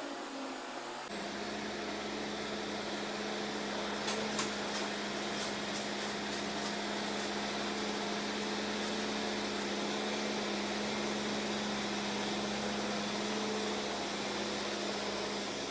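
Steady mechanical hum of running equipment, with one even drone, starting suddenly about a second in; a few light clicks and knocks sound between about four and seven seconds in.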